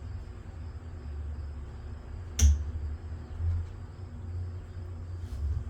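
Kitchen handling noises while batter is spooned into a muffin tin: low thumps and knocks throughout, and one sharp clink about two and a half seconds in.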